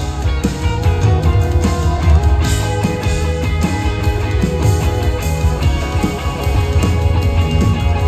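Live rock band playing: electric guitar lines over bass and drums.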